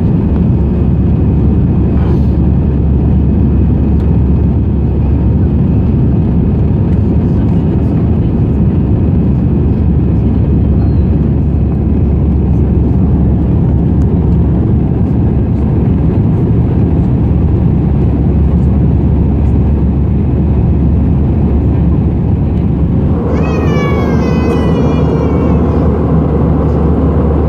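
Cabin noise of an Airbus A320 in flight, heard from a window seat over the wing: a steady low roar of its CFM56 engines and the rushing airflow. Near the end a short, high, wavering voice-like sound rises briefly over it.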